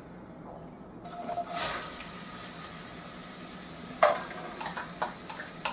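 Chopped onion tipped into hot oil with cumin seeds and turmeric, starting to sizzle loudly about a second in, then frying steadily. A spoon stirs the onion with a few sharp taps against the steel pot.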